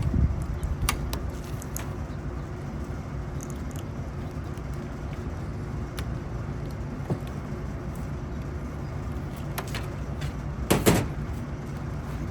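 Steady low machinery hum with scattered light metallic clicks from hand work on the fan assembly, and one short, louder clatter about eleven seconds in.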